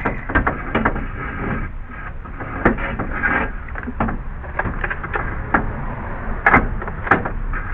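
Irregular knocks, clunks and scrapes as a car radiator is handled and lowered into the radiator support, with sharper knocks about two and a half, six and a half and seven seconds in.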